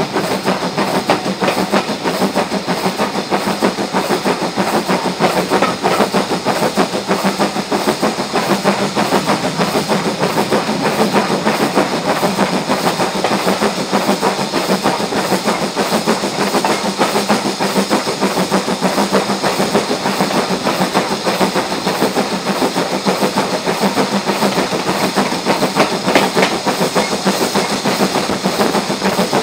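Steam train on the move, hauled by 80151, a BR Standard Class 4 tank engine: a steady mix of steam hiss and wheels running on the rails.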